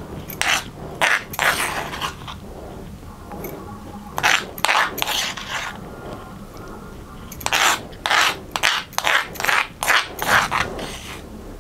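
Metal spoon scraping and scooping coarse raw mango chutney out of a black stone mortar, in quick strokes: a cluster near the start, a few more around four seconds in, and a longer run from about seven and a half seconds in.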